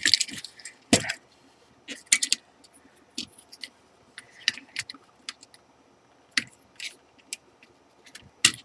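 Scattered clicks and light metallic clatter of small tools and parts being handled on a workbench, as a circuit board is set up in a PCB holder. The sharpest knocks come about a second in and again near the end.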